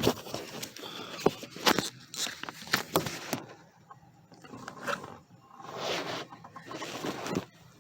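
Scattered light clicks, knocks and scrapes of hands working the clutch pedal and its bracket under the dashboard while the pedal is held down.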